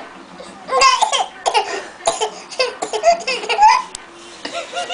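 Family laughing in a run of short bursts, with a baby's laughter among them, starting about a second in and fading out near the end.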